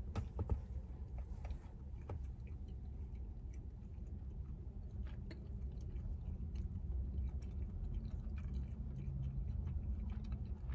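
A person chewing a mouthful of breaded Morningstar meatless buffalo wing with mouth closed, with small wet clicks, over a steady low hum.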